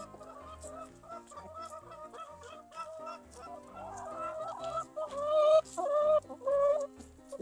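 Chickens clucking repeatedly while feeding, with three loud, drawn-out calls from a hen about five seconds in.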